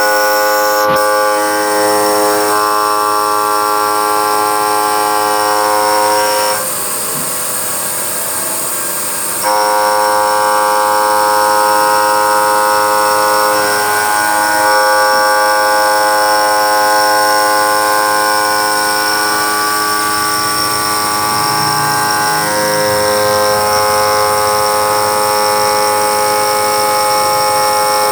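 CNC milling machine running with a steady whine of several pitches. For about three seconds partway through, the whine drops out and a quieter, rougher noise takes its place before the whine returns.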